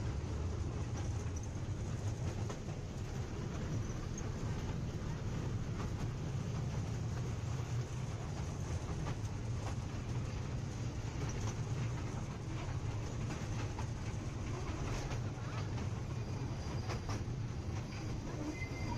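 Museum toy train running slowly along its track, heard from aboard: a steady low rumble of wheels and running gear with scattered clicks over the rail joints, and a faint high wheel squeal near the end.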